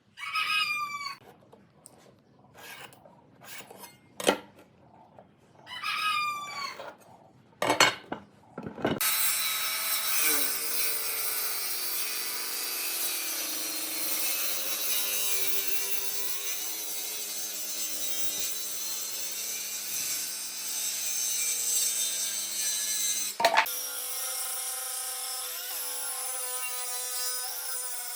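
A power tool working on wood: a run of short separate sounds for the first several seconds, then the tool runs steadily, with a sharp click and a change to a steadier, purer tone near the end.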